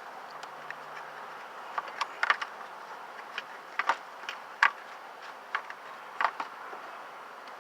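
Irregular light clicks and small rattles of wires and connectors being handled, over a steady background hiss.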